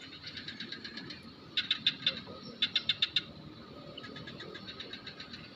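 Birds chirping: steady trains of quick, high chirps, with two loud runs of rapid notes about a second and a half in and again around the middle.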